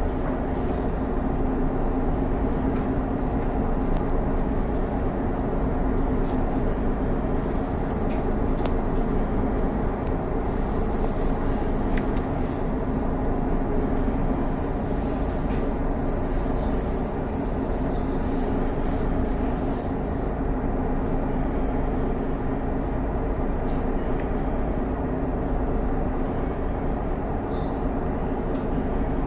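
Boat engine running steadily underway: a constant drone that holds its pitch.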